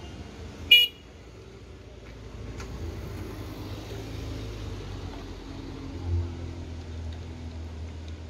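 A short, high-pitched vehicle horn beep about a second in, followed by the low, steady running of vehicle engines on a busy street, swelling briefly near the six-second mark.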